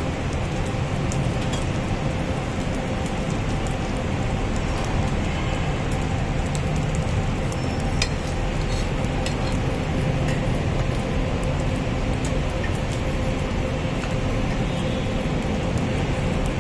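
Steady background din with a faint low hum and scattered small clicks and clinks.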